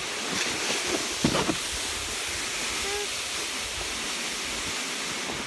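Steady rushing hiss of a sled sliding fast over snow down a hill.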